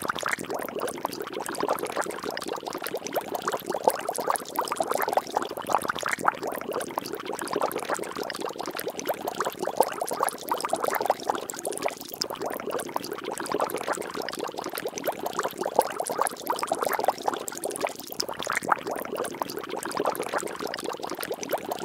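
Water bubbling and splashing continuously, a dense stream of many small pops and gurgles.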